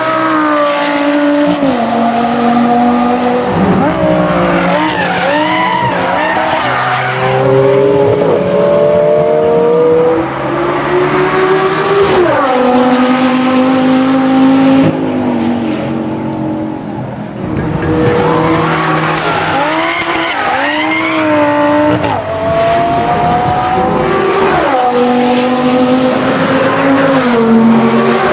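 Lamborghini Gallardo's V10 engine running at high revs, the revs rising and falling, while the tyres give long wavering squeals as the car drifts.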